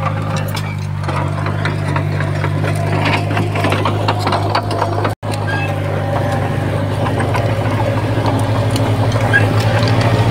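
Heavy-equipment diesel engine running steadily, with metallic clanks and rattles over it in the first half. It cuts out for an instant about halfway, then runs on with an even, pulsing throb.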